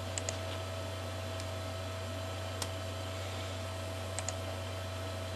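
A few sharp computer mouse clicks, two of them in quick pairs, over a steady electrical hum with a thin steady tone.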